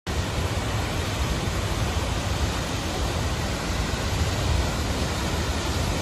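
Waterfall pouring over a rock ledge into a pool: a steady rush of falling water, heaviest in the low rumble.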